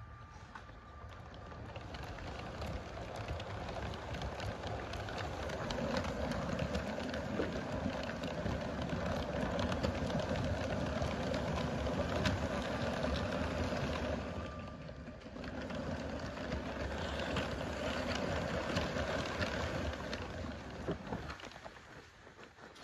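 Lego train rolling past on plastic track, its wheels clicking and rattling over the rails with a steady hum. It builds up, dips briefly about fifteen seconds in, then fades near the end as the train goes by.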